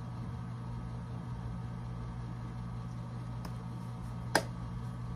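Steady low hum of a ceiling fan running in a small room, with a single sharp click about four seconds in.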